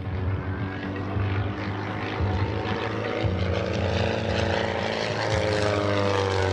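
Pitts Special aerobatic biplane's piston engine and propeller running at power during a display pass; the engine note falls steadily in pitch over the last couple of seconds.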